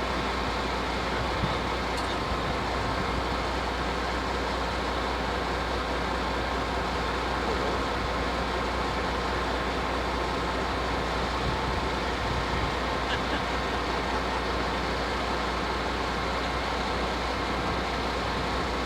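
Steady vehicle noise with a constant low rumble and no distinct events.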